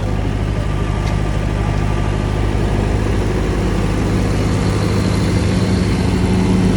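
Diesel generator set running steadily inside its soundproof acoustic enclosure: an even, low engine drone.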